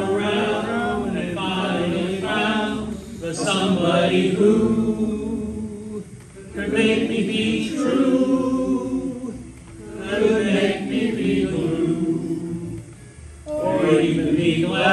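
Several voices singing together in long phrases, with short breaks about six, ten and thirteen seconds in.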